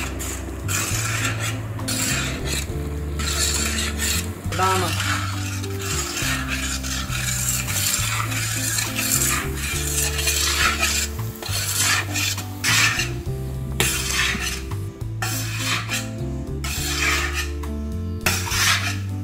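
Flat steel spatula scraping and stirring a thick ground-almond halwa mixture around a large steel pan, in repeated rough strokes.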